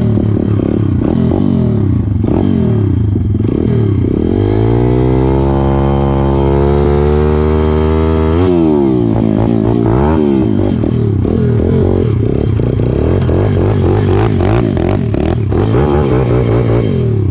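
Pit bike engine revving as the bike is ridden over dirt. The revs climb from about four seconds in and hold high for several seconds, drop sharply just past halfway, then rise and fall unevenly through the rest.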